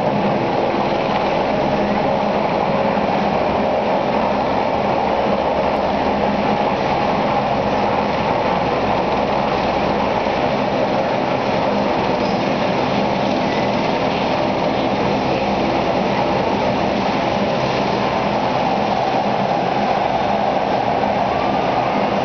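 Helicopter running on the ground with its rotor turning, a loud steady drone of engine and blades that holds one pitch throughout.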